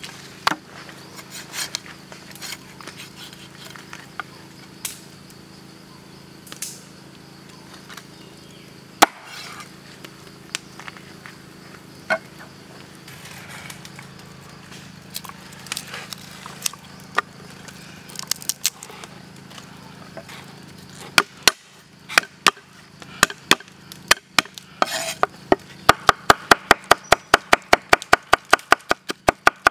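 Scattered knocks on a wooden block, then a cleaver chopping garlic on a thick wooden chopping board, speeding up to fast, even strokes, several a second, near the end.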